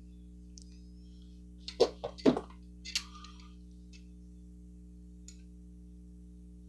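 Metal clicks and knocks of pliers being handled and clamped onto the cap of an oil paint tube to twist it open: two sharp clacks about two seconds in, then a few faint ticks.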